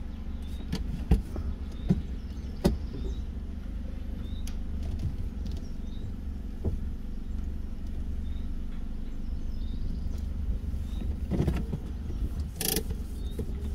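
Steady low rumble and hum inside a car's cabin, as of the car idling. A few light clicks come in the first three seconds, and a short loud hiss comes near the end.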